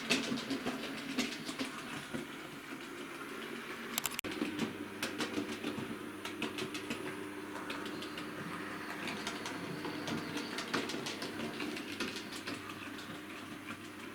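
Hornby OO-gauge model steam locomotive running on track, its small electric motor whirring under irregular clicking of wheels over rail joints and points. A brief dropout about four seconds in, after which the hum is steadier.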